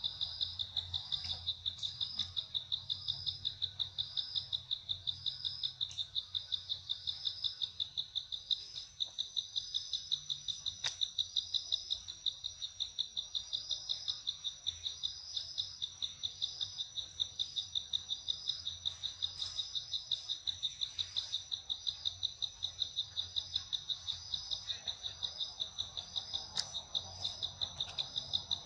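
A loud insect chorus: a fast, even pulsing trill with a steady high whine running above it.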